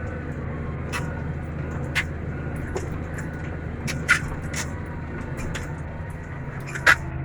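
Tractor engine running steadily while pulling a laser land leveller, with sharp metallic clanks from the rig about two, four and seven seconds in.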